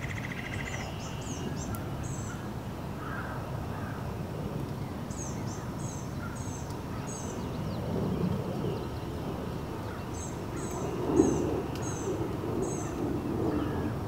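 Water splashing as black-bellied whistling ducks bathe and preen, loudest about eleven seconds in. A small songbird sings short runs of very high, thin notes three times in the background.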